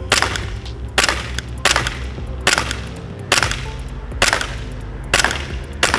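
Rossi Glock R17 gas blowback airsoft pistol firing eight single semi-automatic shots on green gas, a little under a second apart and not evenly spaced. Each shot is a sharp crack of gas with the slide cycling.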